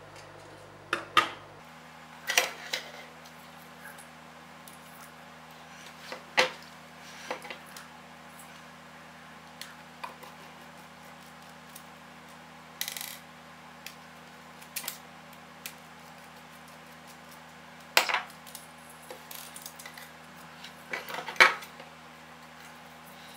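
Small metal and plastic parts of a CD-ROM drive mechanism clicking and clattering as they are handled and set down on a table: scattered sharp knocks, the loudest near the end.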